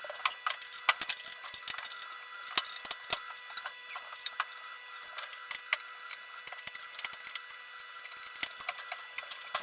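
Irregular clicks and knocks of hard objects being handled or tapped, over a faint steady tone.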